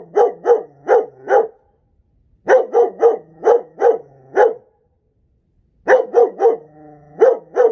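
Young dog barking in three quick runs of sharp barks, about three a second, with short pauses between runs. Near the end a longer, drawn-out whine comes between the barks.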